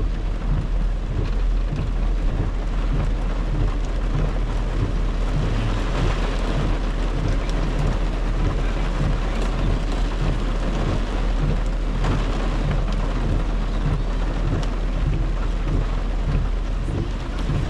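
Heavy rain on a car's windshield and roof, heard from inside the cabin. It is a steady, even hiss over a constant low rumble.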